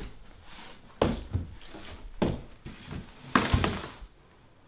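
Things being handled and moved about: a few knocks and thumps with rustling in between, the loudest about three and a half seconds in.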